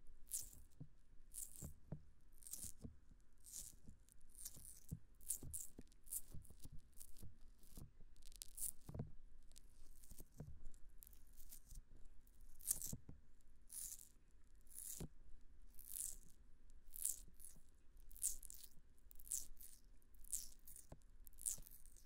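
Fingers rubbing and squeezing the silicone ears of a binaural dummy-ear microphone, close up: soft rustling, squishing strokes in an even rhythm of about two a second.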